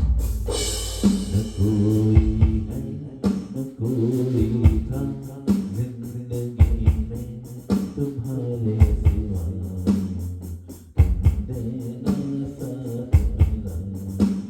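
Background music with bass, guitar and drums keeping a steady beat.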